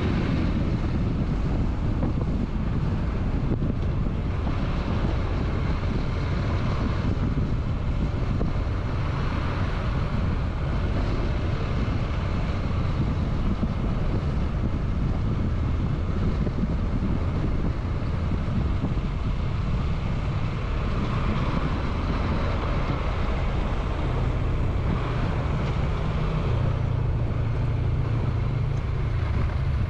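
Motorcycle engine running steadily while riding, with wind buffeting the microphone. The low engine note grows stronger near the end.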